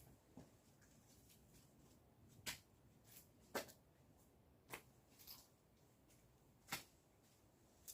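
Split firewood being stacked: pieces of wood knocking sharply onto a woodpile, about six irregularly spaced knocks, the loudest near the end.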